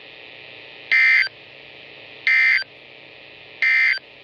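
NOAA Weather Radio SAME end-of-message data bursts: three short bursts of digital data tones, a little over a second apart, over a faint hum. They signal the end of the flash flood warning broadcast.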